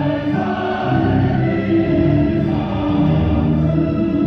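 Choral music: a choir singing long held notes over a musical backing.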